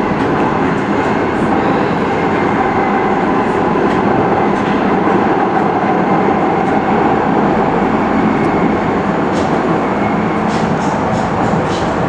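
Docklands Light Railway train running between stations, heard from inside the carriage: a steady, loud rumble of running gear and wheels on rail, with light clicks scattered through it.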